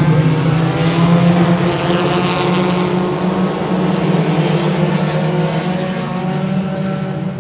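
A pack of front-wheel-drive dirt-track race cars running hard together, many engines blending into one dense drone with pitches gliding up and down. It eases off a little near the end as the pack moves away.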